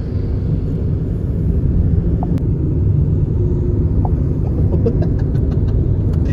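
Steady low rumble of road and drivetrain noise heard inside the cabin of a Mahindra XUV700 cruising on the highway.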